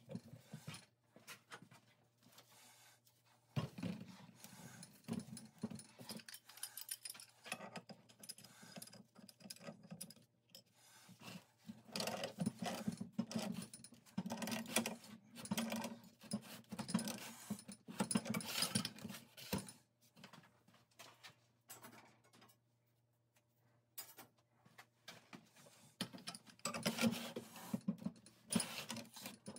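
Black iron gas pipe fittings being threaded together and tightened with a pipe wrench: irregular metal clinks, scrapes and grinding of threads and wrench jaws on iron pipe. The work goes on in bursts, with a few seconds of near quiet about two-thirds through.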